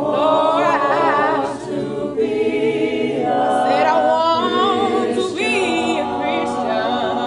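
Gospel choir singing a cappella, several voices holding sustained chords, with a higher voice's wavering, ornamented line weaving above them.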